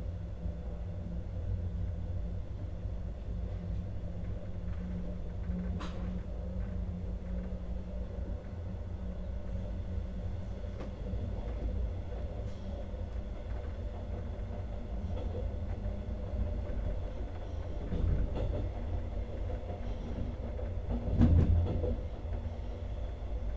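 Alex regional passenger train running along the track, heard aboard: a steady low rumble of wheels on rails with a faint hum, and a few short knocks, the loudest about 21 seconds in.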